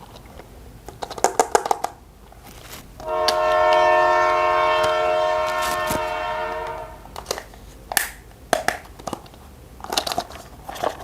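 Plastic toy parts clicking as they are handled, then a toy train's electronic horn sounding one held note for about four seconds. More plastic clicks and taps follow.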